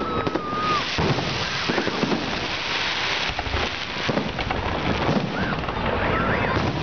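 Fireworks salute going off: a rapid run of bangs and crackling, with a dense crackling hiss from about half a second to three seconds in and a few short whistles.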